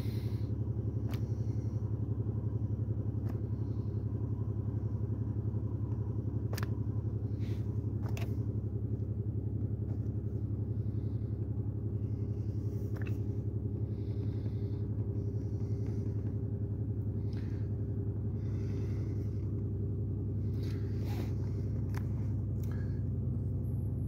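2008 Pontiac Grand Prix 3.8L V6 idling rough, a steady low rumble heard from inside the cabin. The engine is misfiring on cylinders 2 and 5, which share a coil pack, and the owner suspects that coil pack.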